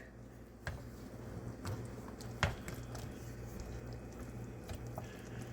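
Torn pieces of bread dropped and pressed into thick cooked pudding in a saucepan: quiet soft squishing, with three light clicks of a spoon on the pan in the first two and a half seconds.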